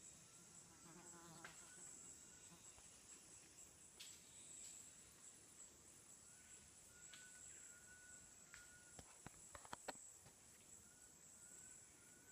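Faint, steady high-pitched insect chorus, with a few short whistled notes here and there and a quick cluster of clicks about nine to ten seconds in.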